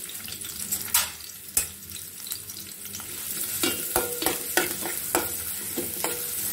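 Chopped onion sizzling steadily in hot oil in a metal pot as it is sautéed. There are two sharp knocks about a second in, then from about halfway a metal spoon stirs and scrapes against the pot in a run of clicks that ring briefly off the metal.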